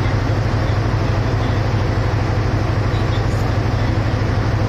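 Steady low diesel drone from a passenger train standing idle at the platform, running evenly with no change in pitch.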